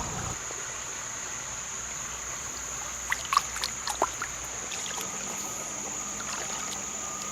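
Creek water running and trickling steadily under a constant high-pitched tone, with a few light clicks and taps about three to four seconds in.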